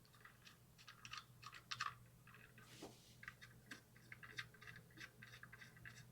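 Faint, irregular small clicks and scrapes of small screws being turned in by hand, fastening three standoff posts for a smart door lock.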